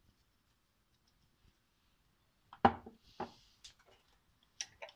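Quiet at first, then about two and a half seconds in two sharp knocks of kitchen utensils, about half a second apart, with a brief hiss between them, followed by a few light clicks, as salt is added to the eggplant salad.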